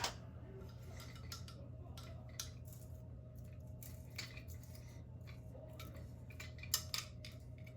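Scattered light clicks and metallic taps as the parts of a GU10 track light fixture are handled and worked apart, with a sharper click at the very start and a couple of louder ones near the end.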